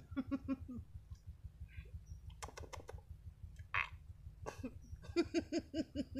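A man giggling in two runs of quick chuckles, about five a second, one at the start and a longer one near the end, with soft clicks and a breathy puff between them.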